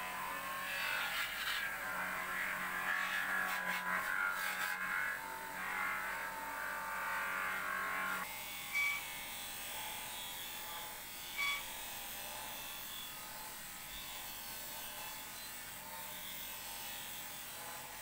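Bench grinder motor running with a polishing wheel, metal pressed and rubbed against the spinning wheel: first a flat sheet-metal panel, then, after a change about eight seconds in, a chrome wire guard. Two short high pings about nine and eleven and a half seconds in.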